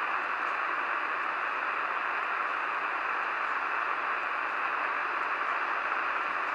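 Steady shortwave static hiss from a Sony ICF-SW07 receiver's speaker, tuned to 15235 kHz AM with no programme audio: the Radio Canada International transmission has gone off air.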